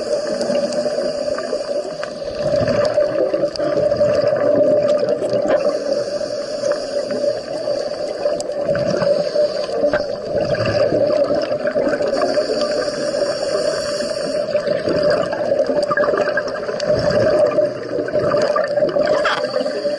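Underwater sound on a scuba dive: a steady drone with gurgling bubbles that swell every few seconds.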